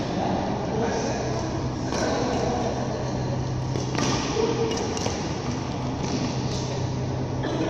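Badminton rally: rackets striking the shuttlecock, several sharp cracks a second or two apart. A steady low hum runs underneath.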